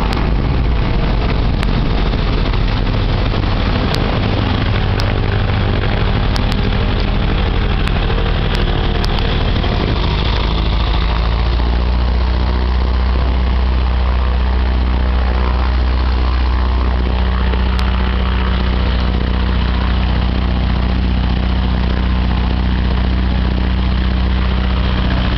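SeaRey amphibian's pusher engine and propeller running as the plane moves on the water, with water rushing and spraying along the hull. About ten seconds in, the engine note settles to a steady lower pitch.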